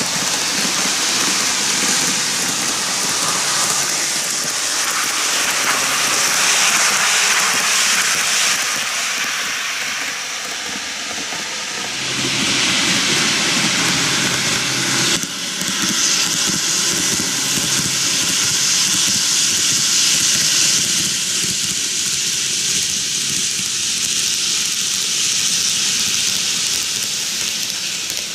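N-gauge model trains, a Kintetsu 23000 series Ise-Shima Liner and an 80000 series Hinotori, running on curved plastic track: a steady rolling rattle and hiss of wheels and motors. Around the middle a deeper rumble joins for a few seconds and cuts off suddenly.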